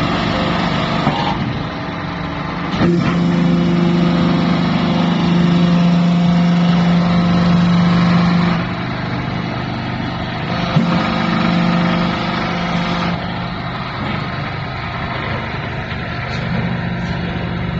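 Horizontal hydraulic metal baler running, its pump and motor giving a steady hum. The low pump note grows louder from about three seconds in until past eight seconds, and again briefly around eleven to twelve seconds. A sharp knock sounds about three seconds in and another near eleven.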